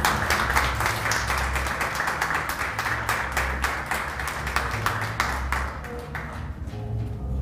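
Audience applauding, a dense patter of many hands clapping that thins out and dies away about six seconds in.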